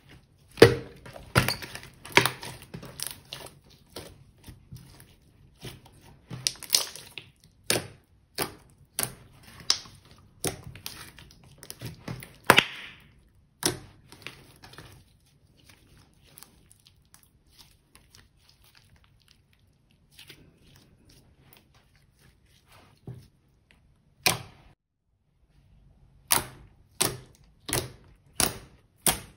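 Hands squeezing and poking glossy slime, making sharp wet clicks and pops. There is a busy run of them in the first half, a quiet stretch, then a steady series of pops, nearly two a second, near the end as fingers poke into the slime.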